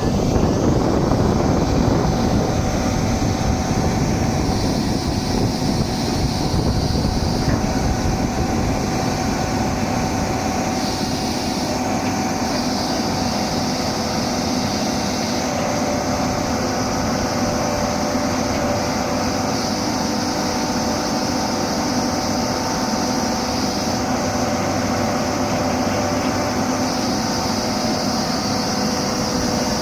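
Doosan 300LC-V excavator's diesel engine running steadily, with a few steady whining tones over it.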